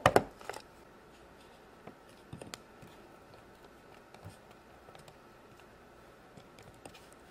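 Hard plastic toy pizza oven being handled: a cluster of loud clicks and knocks at the start, a few more about two and a half seconds in, then scattered faint taps while fingers press modelling dough on its top.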